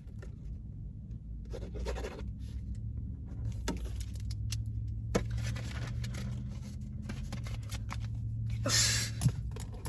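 A steady low rumble with a few rustles and sharp clicks; the loudest rustle comes near the end.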